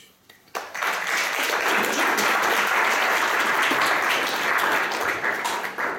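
Audience applauding, starting sharply about half a second in and dying away near the end.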